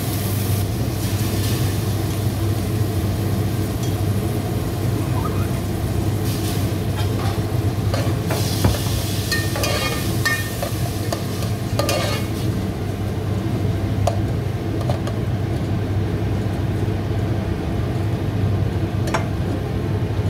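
Rice grains frying in hot ghee while being stirred in the pan: a steady sizzle, with a cluster of spoon scrapes and clicks against the pot about eight to twelve seconds in.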